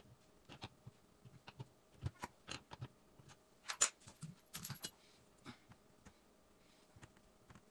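Faint, scattered metallic clicks and clinks of an adjustable wrench on a brass hose fitting at a dishwasher's water-inlet valve, with a cluster of sharper clinks near the middle.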